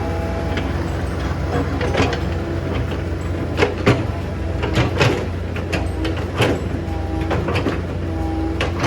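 Hydraulic excavator running, its hydraulics whining in spells as it works, with irregular knocks and clatters of stones against the bucket.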